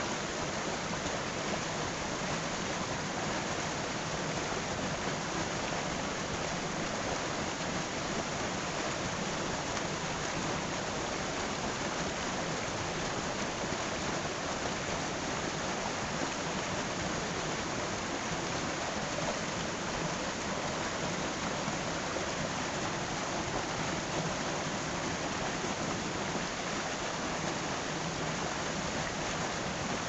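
Shallow rocky stream running over boulders and small cascades: a steady, unchanging rush and splash of water.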